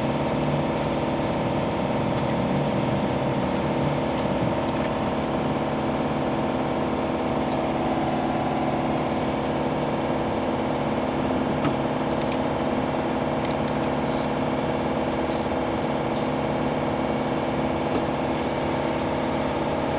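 2002 GMC Envoy's 4.2-litre straight-six idling steadily, still misfiring: the owners found water in a cylinder and put the misfire down to a blown head gasket.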